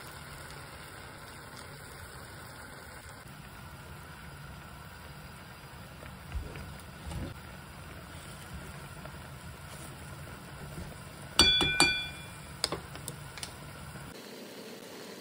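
Portable gas stove burner running with a steady low rumble under a pan of hot pot. A few soft knocks come from the pan as it is stirred, and near the end there are sharp clinks that ring briefly.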